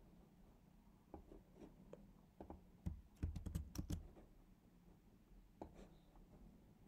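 Faint scattered clicks from computer input, with a quick run of sharper clicks about three to four seconds in.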